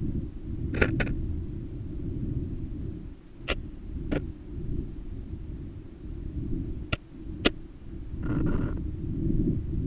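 Low, muffled rumble of a GoPro rig being lowered down a borehole, broken by six sharp knocks in pairs as it bumps against the borehole wall, and a short scrape about a second before the end.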